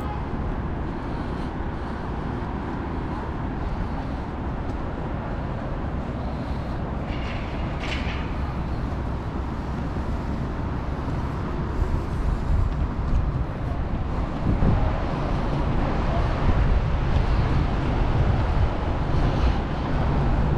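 Steady city street noise of road traffic, getting louder in the second half.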